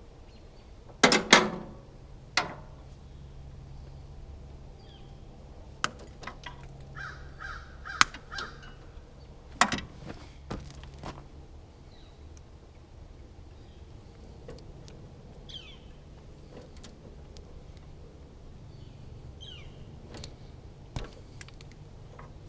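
Scattered sharp knocks and clanks, loudest in a cluster near the start and again about eight to ten seconds in, with a bird calling three or four times in quick succession about seven seconds in and a few faint chirps later, over a low steady hum.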